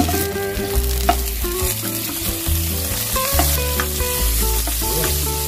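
Butter sizzling as it melts in a hot nonstick wok, pushed about with a spatula; the sizzle starts as the butter hits the pan and then carries on steadily.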